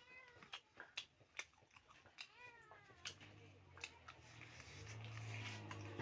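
A cat meowing twice, each call rising then falling in pitch, among scattered sharp clicks. A low steady hum sets in about halfway through.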